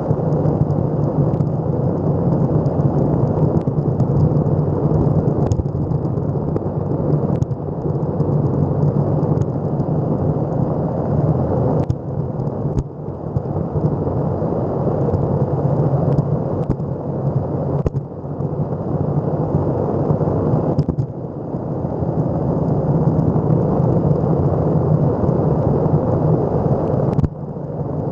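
Electric skateboard rolling fast over rough asphalt: a loud, steady road rumble from the wheels, with a few sharp knocks from bumps and cracks in the pavement.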